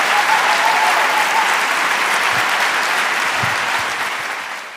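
Large audience applauding, a dense steady clapping that fades out near the end.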